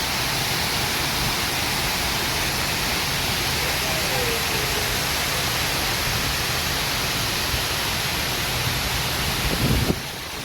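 Water pouring down a man-made waterfall: a steady rushing hiss. A brief low rumble near the end, after which the sound is a little quieter.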